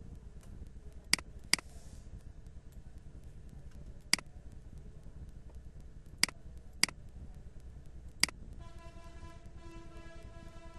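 Computer mouse clicking: six sharp single clicks, a second or more apart, over a steady low hum. Near the end a steady pitched drone with overtones comes in and holds.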